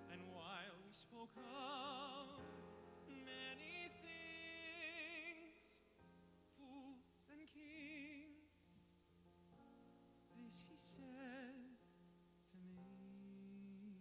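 A man singing held notes with a wide vibrato, accompanied by a grand piano.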